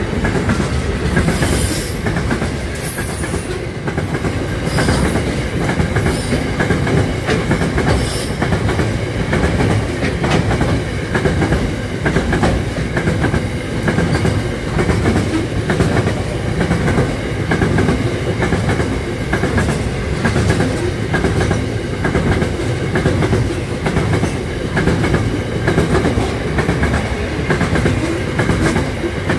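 Covered hopper wagons of a freight train rolling past close by at speed, a steady rumble with the wheels clattering on the rails.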